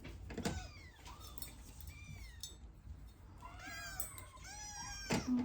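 Kittens mewing: a string of short, high, arching mews, several coming close together in the second half. A sharp knock sounds near the end.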